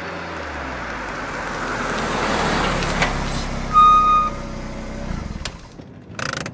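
A car engine running, with a noisy swell that builds over the first few seconds and then stops about five seconds in. A click comes near three seconds, and a short high-pitched beep about four seconds in is the loudest moment.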